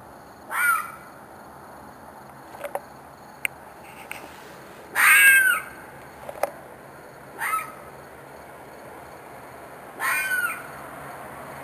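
An animal screaming: four short, harsh screeching cries a few seconds apart, each with an arching pitch. The recordist takes it for a fox or coyote in distress.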